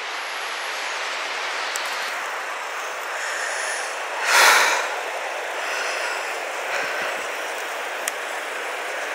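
Steady rush of a river's flowing water. About four and a half seconds in there is one brief, louder whoosh as the camera is swung quickly.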